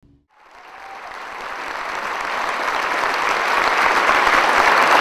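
Audience applauding, fading in from silence and growing steadily louder.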